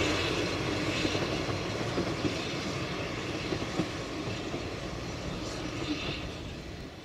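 Narrow-gauge train running along the track, a steady clatter with a few sharp knocks. It dies away over the last second or so.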